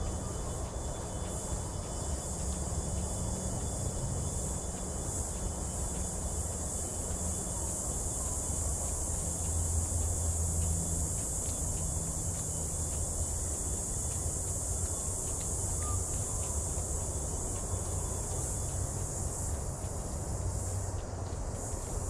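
A chorus of bush insects drones steadily at a high, even pitch. Underneath runs a continuous low rumble.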